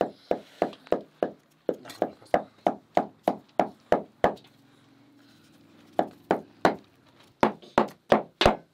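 A knife chopping meat into mince on a wooden cutting board: sharp, regular knocks about three a second, which stop for a second or two midway and then start again.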